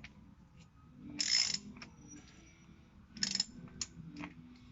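Ratchet wrench clicking in two short bursts, about a second in and again near three seconds, with a few single clicks between, as bolts on a Harley-Davidson Sportster's primary case cover are snugged down.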